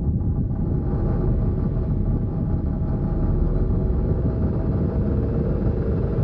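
Suzuki Alto engine running, with a steady, heavy rattling rumble from the engine bay. The rattle comes from the alternator, which is wobbling and not running true because its lower mounting bracket is damaged.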